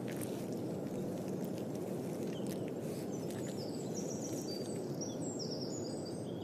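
Steady outdoor nature ambience, a low hiss with a few faint soft ticks, and faint short high-pitched chirps from about halfway through.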